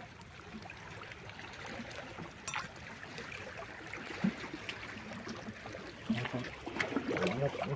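Seawater washing and trickling among shore rocks, a steady wash with a few sharp clicks, one about two and a half seconds in and another about four seconds in.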